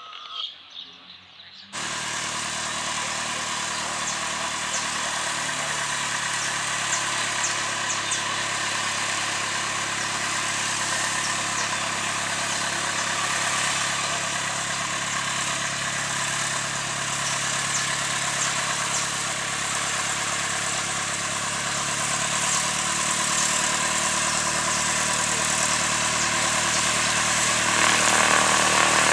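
Cessna 152's four-cylinder Lycoming engine and propeller running at low power as the plane taxis, a steady drone that cuts in abruptly about two seconds in and grows louder towards the end. Before it, brief bird chirps.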